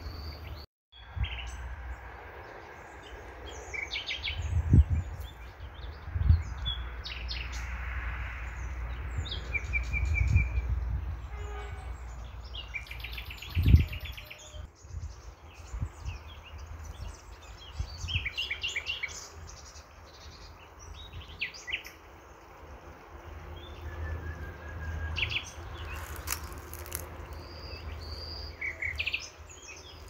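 Songbirds chirping and trilling in short scattered phrases over a steady outdoor hiss. Several low thumps on the microphone are heard, the loudest about 14 seconds in.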